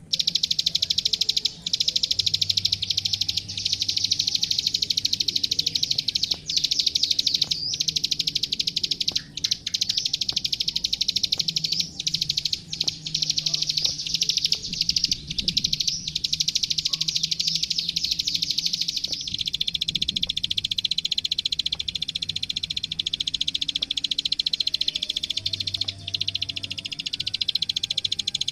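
Plain prinia (ciblek sawah, the 'klik klik' bird) singing non-stop: a very fast, high, clicking trill that runs on without a break. It settles a little lower in pitch about two-thirds of the way through.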